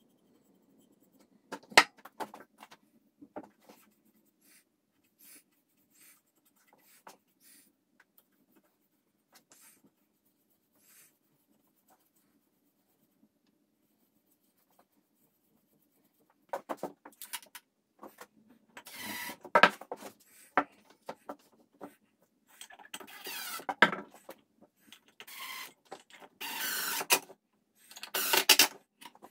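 Soft brush strokes and small clicks of stain and finish being brushed onto wood. From about halfway, louder irregular workshop noise of boards being handled and screwed, with a cordless drill driving screws in short bursts near the end.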